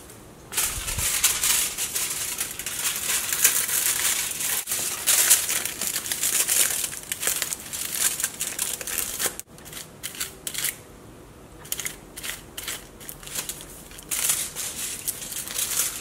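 Sheet of crumpled aluminium hairdressing foil crinkling as it is handled and folded against a section of hair: a long continuous stretch of crinkling, then shorter bursts with a pause before more near the end.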